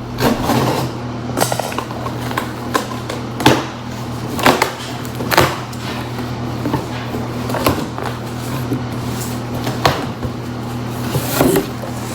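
Delivery package being handled and opened: about a dozen sharp knocks and rustles of packaging, irregularly spaced, over a steady low hum.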